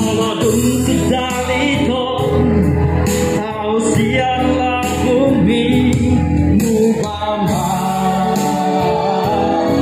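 A priest singing solo in a sustained voice with vibrato, amplified through a handheld microphone, over music accompaniment.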